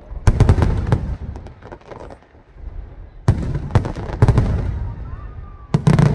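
Aerial fireworks shells bursting in volleys: a cluster of sharp booms about a third of a second in, another about three seconds in and a third near the end, each trailing off into crackle and rumbling echo.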